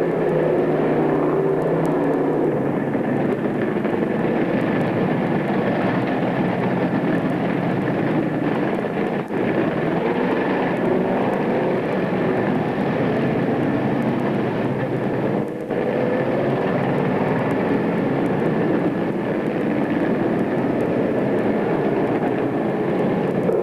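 Dirt track race car engines running, a steady loud drone whose pitches drift up and down, with two brief dips in level.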